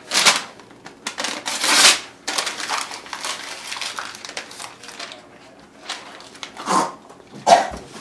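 Paper rustling and crinkling as it is handled, in short irregular bursts, louder in the first two seconds. A couple of brief vocal sounds come near the end.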